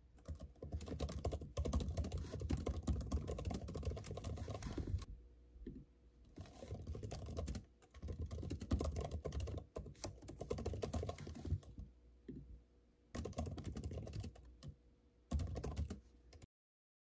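Fast typing on a MacBook Air laptop keyboard: dense runs of light key clicks in several bursts with short pauses between them, stopping abruptly about half a second before the end.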